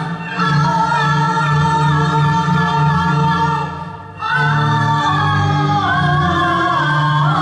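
Cantonese opera singing: two long sung phrases with wavering, held notes and a brief break about four seconds in.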